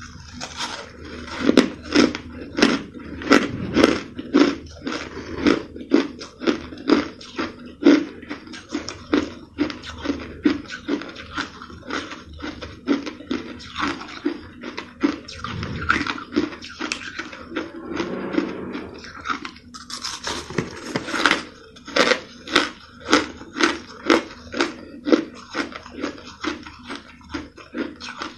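Purple-flavoured crushed ice being bitten and chewed, with rapid crunching at about two crunches a second.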